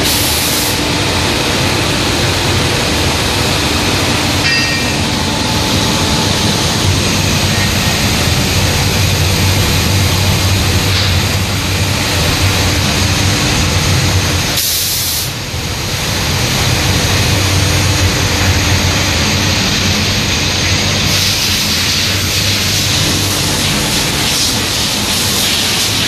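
Automatic powder-coating booth in operation: a steady loud rush of air with a low hum underneath, dipping briefly about halfway through.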